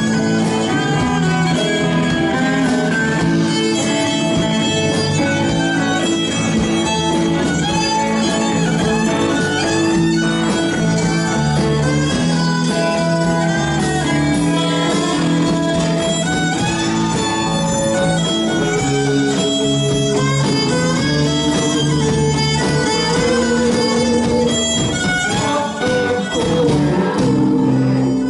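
Live rock band playing an instrumental passage: a bowed violin carries melodic lines over two electric guitars and drums.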